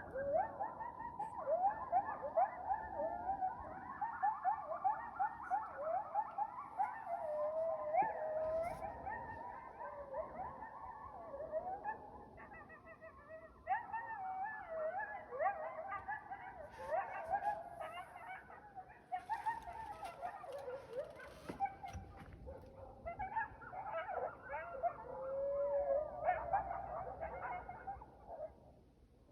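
A pack of coyotes howling and yipping in chorus, with many wavering calls rising and falling over one another. The chorus thins out and dies down near the end.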